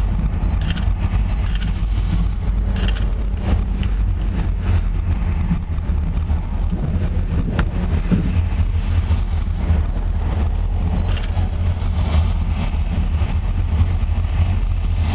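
Steady low engine rumble, with scattered light ticks and taps over it.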